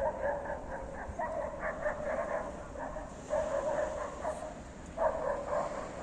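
Gulls calling in runs of quick, yelping notes, four runs with short pauses between them.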